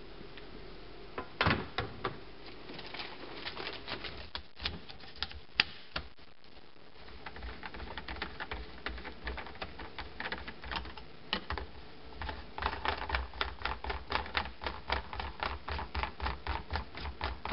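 Plastic bulk-container liner and its spout fitting being handled: crinkling plastic and a string of sharp clicks. The clicks come irregularly at first, then settle into a quicker, steadier run in the second half.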